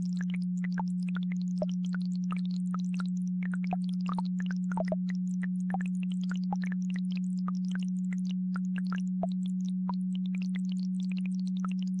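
A steady, low, pure electronic tone, the brainwave-entrainment tone, held without a break and louder than everything else. Beneath it, babbling-brook water gives a scatter of small splashes and gurgles.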